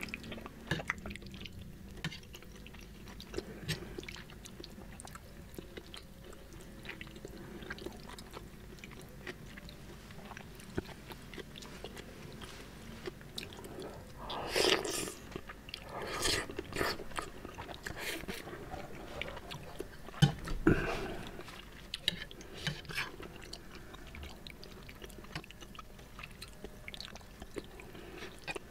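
Close-miked chewing and mouth sounds of a person eating saucy seblak, with short clicks of a spoon and fork against the plate. Louder mouthfuls come about halfway through and again a few seconds later.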